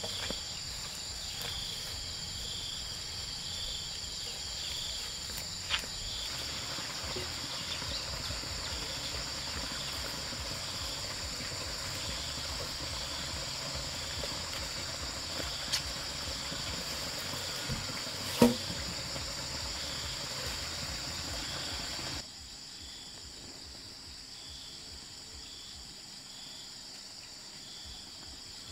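Steady chorus of forest insects: a high, continuous drone with a pulsing call repeating about once a second. A few sharp knocks sound over it, the loudest about two-thirds of the way through, and the whole chorus drops in level about three-quarters of the way in.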